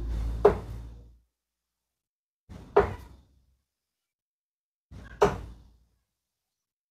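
Three steel-tip darts thudding one after another into a Winmau Blade 5 bristle dartboard, about two and a half seconds apart.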